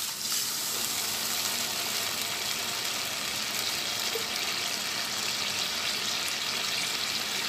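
Water poured from a cup into a hot pan of sautéed potatoes and tomato masala, then the liquid hissing and bubbling steadily in the pan.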